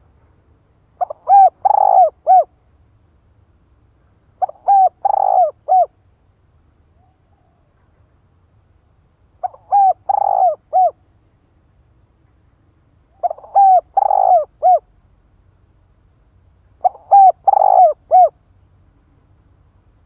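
Spotted dove cooing loudly and close by: five multi-note coo phrases, each about a second and a half long, spaced roughly four seconds apart.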